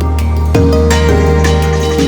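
Background music: a mellow new-age track with sustained notes, a steady bass line and a change of chord about half a second in.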